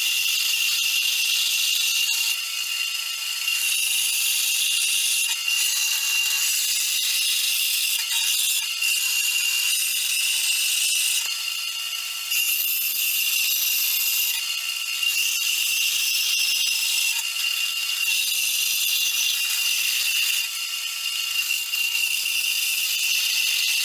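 Metal-cutting bandsaw blade cutting through 1/8-inch mild steel flat bar: a steady hissing grind with a constant high whine, the level shifting slightly every few seconds.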